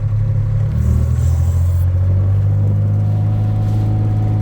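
Side-by-side utility vehicle's engine running under way, revving up slightly about a second in and then holding steady.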